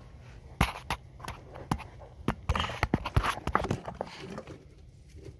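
A string of irregular light clicks and knocks, with a low steady hum underneath.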